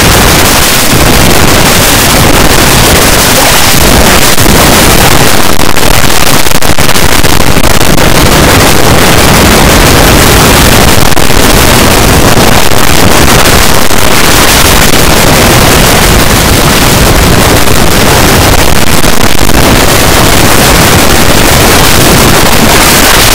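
An 'earrape' edit of a song: the audio is boosted to full scale and clipped so hard that it becomes a constant, harsh wall of distorted noise. No tune or words can be picked out.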